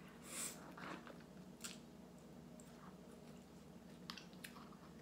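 Quiet eating sounds of snow crab: a short noisy suck about half a second in as meat is pulled off a crab leg with the mouth, then soft chewing with a few small clicks and smacks.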